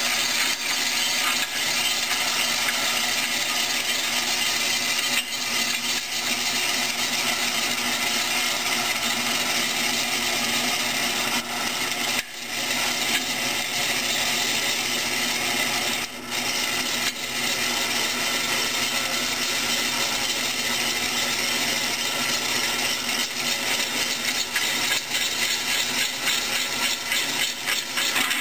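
Craftsman 100 drill press boring through steel plate with a twist bit: a steady, continuous cutting noise of the bit in the metal over the running motor, with two brief dips about twelve and sixteen seconds in.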